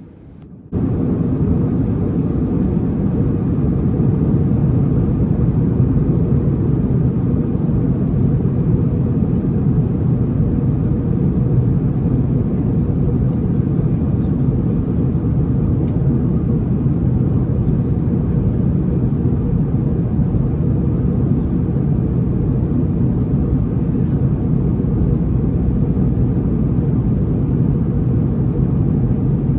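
Steady low rumble of an Airbus A321neo's cabin in flight on approach: airflow and engine noise heard from a passenger seat. It starts abruptly just under a second in and then holds even.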